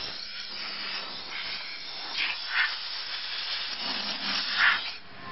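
Small CNC engraving router carving an MDF relief panel: a steady hiss from the spindle and cutter, swelling louder a few times as the bit works the wood.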